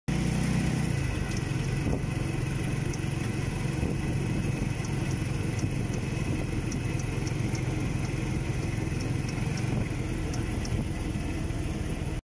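A motorcycle engine running steadily at idle, a low even rumble, with faint high clicks scattered over it.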